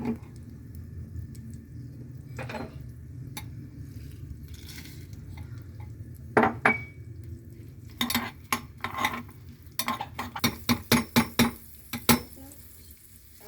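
Metal utensil clinking and scraping against cookware, scattered knocks at first, then a quick run of about a dozen clinks over the last few seconds, over a steady low hum.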